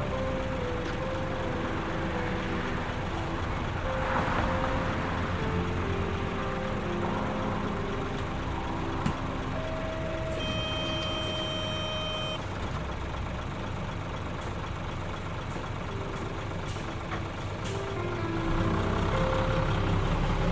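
Claas Lexion combine harvester running steadily under harvesting load, its diesel engine and threshing machinery droning. About halfway through, a high electronic tone sounds for about two seconds.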